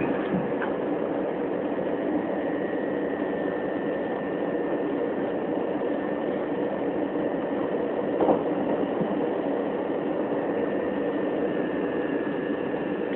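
Interior running noise of a Class 375 electric multiple unit at speed: a steady rumble of wheels on rail under a thin, steady high whine from the train's electrics. A single short knock comes about eight seconds in.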